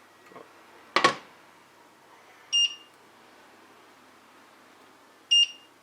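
A single sharp knock about a second in, then two short, high electronic beeps nearly three seconds apart, like a kitchen appliance's control panel.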